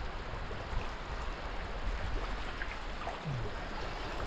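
Shallow river water flowing and splashing around people wading in it: a steady rushing hiss.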